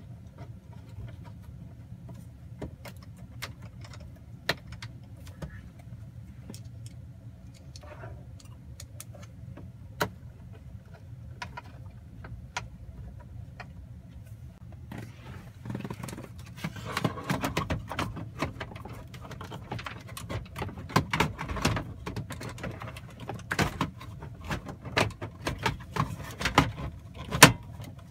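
Scattered light clicks of hand work on a pickup's dashboard as the instrument cluster's Torx screws go in, then from about halfway a busier run of plastic clicks and rattles as the dash trim is handled and fitted, over a steady low hum.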